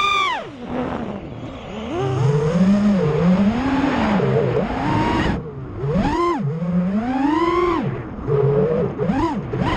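FPV freestyle quadcopter's brushless motors (Emax Eco 2207 1700 kV on 6S) whining, their pitch swooping up and down over and over as the throttle is punched and cut through flips and dives. There is a rush of wind noise, strongest in the middle.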